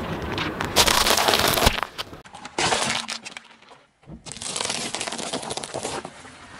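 A car tyre rolling over and crushing ears of corn, a dense crunching and crackling. After a brief gap, a tyre crushes a ball of M&M candies, their sugar shells cracking in a spray of crackles that stops abruptly.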